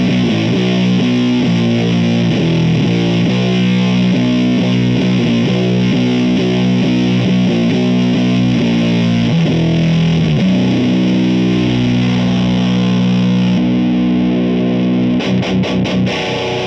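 Electric guitar played through an Elder God fuzz pedal (a silicon Fuzz Face and Green Russian fuzz in one) into the dirty channel of a Mesa Boogie JP-2C amp, chugging a heavy fuzzed riff. Near the end it breaks into a few short, choked chord stabs and then stops.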